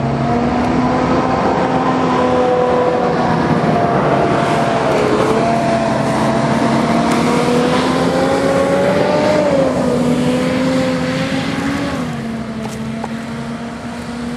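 Sheffield Supertram Siemens-Duewag electric tram passing close by on the track: a whine of several tones over the rumble of wheels on rail. The whine shifts in pitch a few times, and the sound fades from about twelve seconds in.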